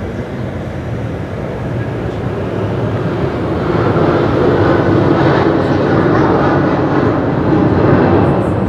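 Airbus A330-200's Rolls-Royce Trent 700 turbofans at takeoff thrust during the takeoff roll: a steady jet rumble that grows louder over the first four seconds and then holds as the airliner rotates.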